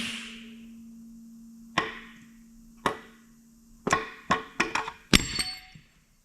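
Sharp metallic clanks and taps on engine parts: about seven irregular strikes with short ringing in the second half, the loudest near the end. At the start a hissing noise dies away, leaving a faint steady hum.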